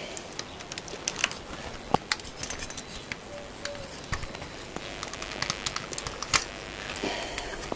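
Irregular light clicks and taps with bursts of rustling, handling noise as the camera is moved about.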